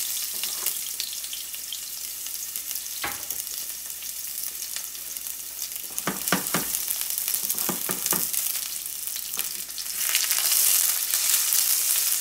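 Shallots sizzling in a hot sauté pan, a steady frying hiss with a few light knocks, growing louder about ten seconds in.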